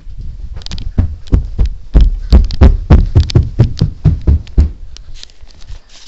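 Camera handling noise: a quick, irregular run of thumps and knocks on the microphone, a few a second, loudest in the middle and stopping near the end.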